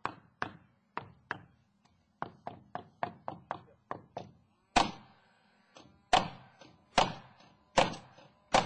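Hammer driving nails into wood: scattered light taps, then a quick run of lighter strikes, then heavier blows about one a second in the second half.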